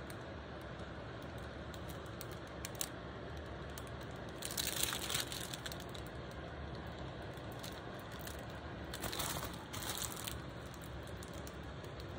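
Crinkling of the clear plastic film covering a diamond painting canvas as it is handled, in two short bouts about four seconds apart, over a low steady background hiss.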